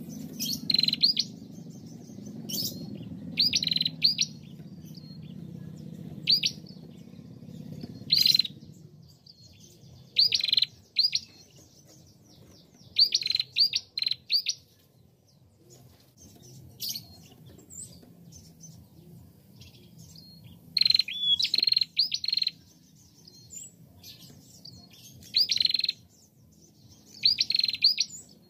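Female prenjak, a small warbler-type songbird, calling in quick clusters of short, sharp, high chirps, each cluster about half a second to a second long, with pauses of a few seconds between some of them.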